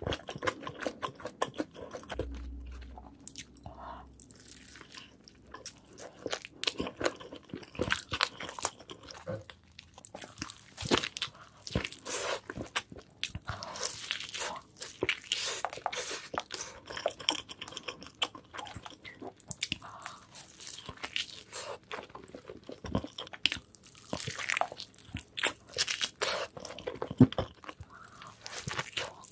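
Close-up eating sounds: crunchy bites into crispy fried chicken burgers and chewing, a continual irregular crackle of crunches and mouth clicks.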